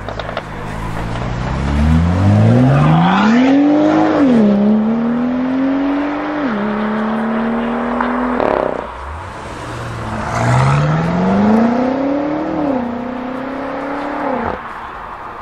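Two BMW M5 F90 twin-turbo V8 sedans accelerating hard one after the other. Each engine note climbs steeply, drops sharply at quick upshifts (twice on the first car, once on the second) and fades as the car pulls away.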